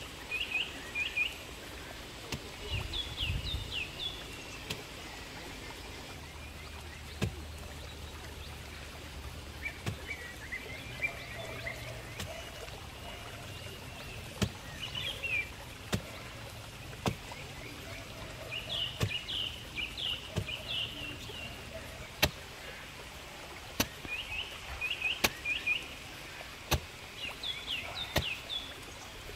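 A long-handled digging tool striking down into packed earth, one blow about every one and a half seconds from about seven seconds in. Birds chirp in short, quick runs of notes.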